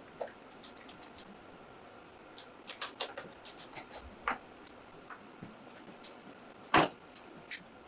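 Small clicks and taps of hand tools and bolts being worked on the motorcycle, in quick irregular runs, with one louder knock about seven seconds in.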